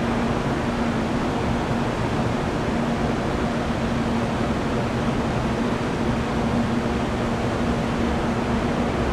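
Jet airliner engines running, a steady rushing noise with a constant low hum and no change in level.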